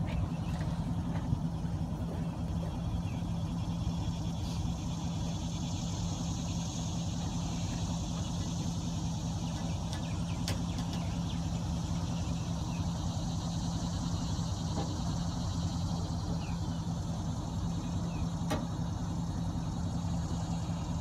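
A motor vehicle engine running steadily, an even low hum with one constant tone. A faint high buzz sits over it, and two light sharp clicks come about ten and eighteen seconds in.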